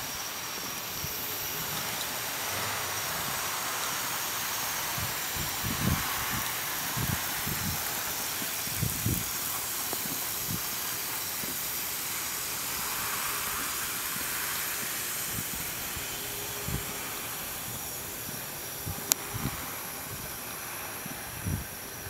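Steady hiss, with a few soft, low thumps scattered through it.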